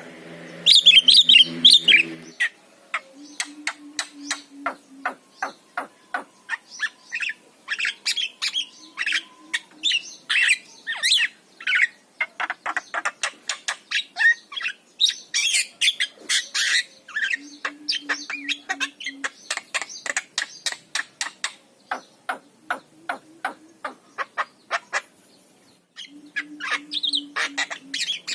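Javan myna singing: a rapid run of clicks and harsh squawks mixed with short whistled notes, going on almost without a break.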